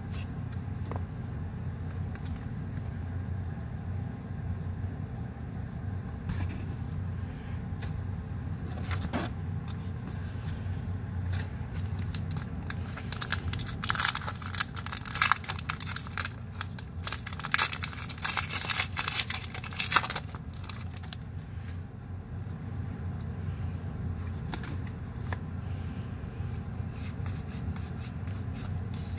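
Foil booster-pack wrapper of Pokémon trading cards torn open by hand, crackling and crinkling in a dense run of about seven seconds, over a steady low hum.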